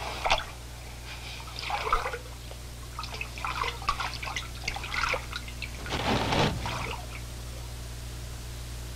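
Bathwater splashing and trickling in a tub as a bather moves in it, in irregular bursts with the biggest splash about six seconds in, over a steady low hum; the water sounds stop about seven seconds in.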